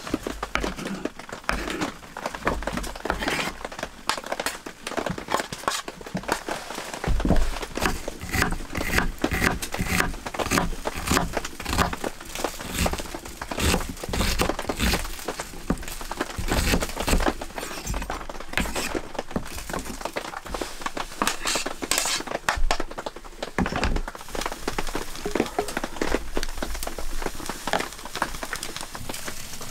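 Kitchen knife tapping and scraping chopped tomatoes and onions across a wooden cutting board and into a baking tray: a run of irregular knocks and scrapes. A wood stove's fire crackles, and near the end a wooden spoon stirs the vegetables in the tray.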